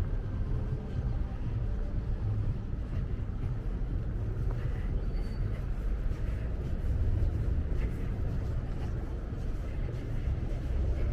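Outdoor city ambience: a low, uneven rumble of street traffic mixed with wind buffeting the microphone.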